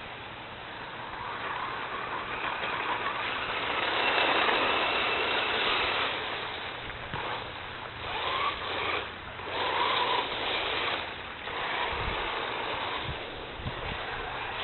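Radio-controlled car driving and drifting on ice: a noisy rush of motor and tyres that swells twice and fades with the throttle.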